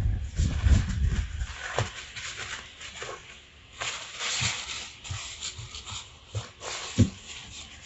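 Rustling of a cloth drawstring fishing-rod sleeve as it is untied and handled on a desk, with low thumps of hands and the rod against the table and a sharp knock about seven seconds in.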